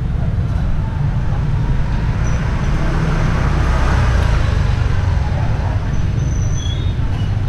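Motor scooters in a narrow street over a steady low rumble of traffic; one scooter passes close about three to four seconds in.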